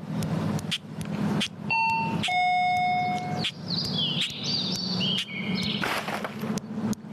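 Shop door entry chime: a two-note electronic ding-dong, a short higher note about two seconds in followed by a longer lower one. It is followed by a run of high chirps that step down in pitch, and a thump near the end.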